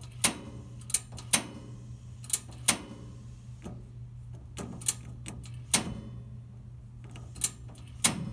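Camp Chef outdoor oven's push-button piezo igniter clicking about nine times at uneven intervals, over a low steady hum, without the oven burner catching.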